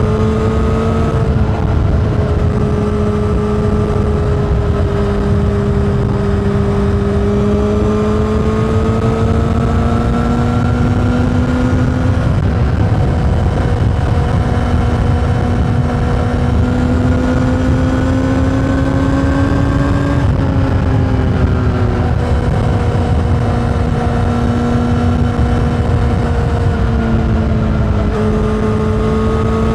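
Honda CBR600RR's inline-four engine through an Akrapovič exhaust, running hard at high revs on the move. Its note climbs slowly, then breaks and drops in pitch about three times, with steady wind and road noise underneath.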